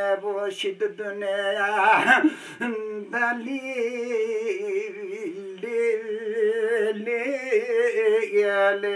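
A man singing a Kurdish uzun hava (long song) solo: a free-rhythm melody of long held notes with wavering, ornamented turns.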